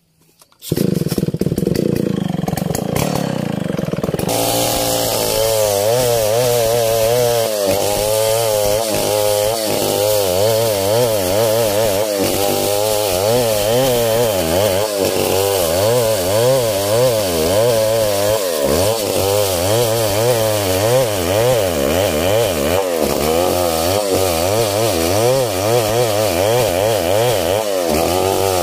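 Two-stroke chainsaw starting up about a second in, running at high revs, then ripping lengthwise through a coconut trunk from about four seconds in, its engine pitch wavering up and down as the chain loads in the wood.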